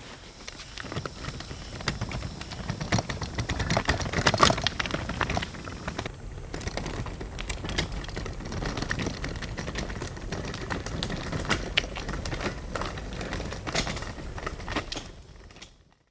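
Loaded folding camp wagon rolling over stone paving blocks: its wheels, frame and load rattle and clatter steadily with many small knocks, fading out near the end.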